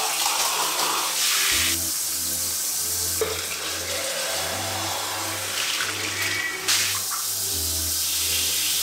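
Water spraying from a handheld shower head, rinsing a stainless steel mug and tumbler and splashing onto a tiled floor; the spray starts abruptly and runs steadily, with a couple of light knocks of metal being handled.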